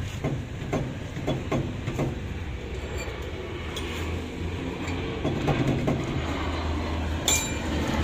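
Heavy steel brake drum of a truck being worked onto its hub by hand, giving irregular metal knocks and clanks over a steady low hum, with a sharp metallic click near the end.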